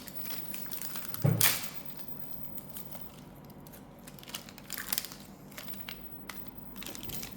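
Foil Pokémon booster pack being torn open, with a loud rip about a second in, followed by scattered crinkling of the wrapper.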